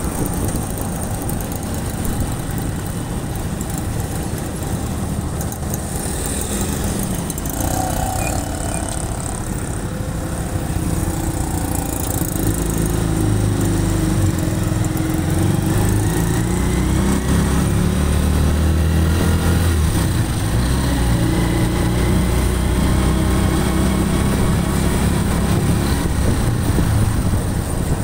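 Small engine of a moving auto-rickshaw running, heard from on board along with road noise. About halfway through it grows louder and its pitch rises and falls with the driving.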